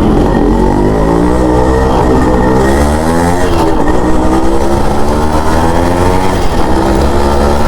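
Yamaha RX100's two-stroke single-cylinder engine running under way, its note rising as it accelerates, dropping briefly about three and a half seconds in, then rising again.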